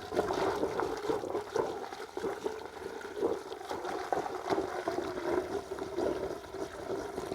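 Gasoline pouring from a can through a small funnel into an ATV's fuel tank: a steady trickling pour that eases off a little near the end.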